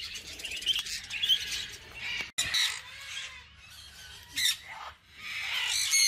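A flock of budgerigars and cockatiels chirping and chattering. After a sudden break about two seconds in, there are a few loud, harsh conure squawks, one near the end.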